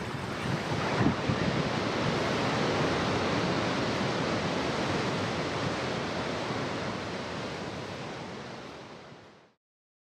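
Ocean surf: a steady rush of waves breaking, swelling about a second in and then fading out to silence near the end.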